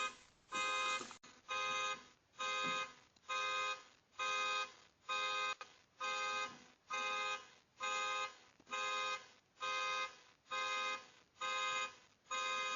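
Car alarm going off, set off by a break-in: one electronic beep at a fixed pitch repeating steadily, about three beeps every two seconds.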